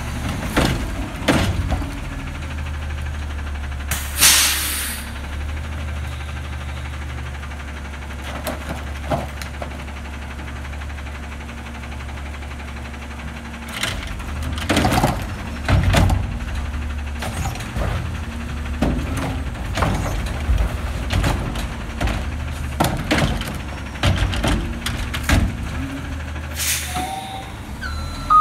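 Diesel engine of a McNeilus front-loader garbage truck running steadily, with a short sharp hiss of air about four seconds in. In the second half, a run of metallic clunks and knocks comes from the truck's cart-handling arm.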